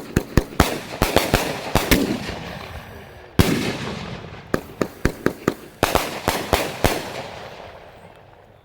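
Old Ironsides 30-shot 500-gram fireworks cake repeater firing: sharp bangs in quick runs of several a second, with one big single bang in between, each run trailing off in a fading wash. The shots die away near the end as the cake finishes.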